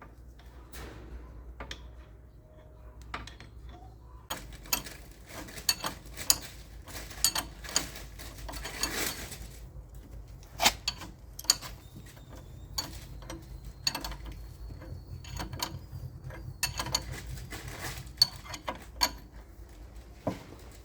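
Irregular metallic clicks and clanks of hand tools and parts being handled during repair work, some ratchet-like, over a low steady hum.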